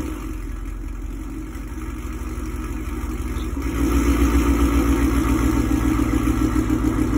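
A 2019 Ford Mustang GT's 5.0 Coyote V8 idling through an updated aftermarket quad-tip exhaust: a steady, evenly pulsing low rumble that gets louder about halfway through.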